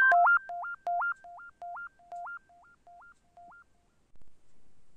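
Synthesizer intro jingle: a two-note figure, a low note leaping up an octave, repeated about twice a second and dying away like an echo over about three and a half seconds. Faint handling noise follows near the end.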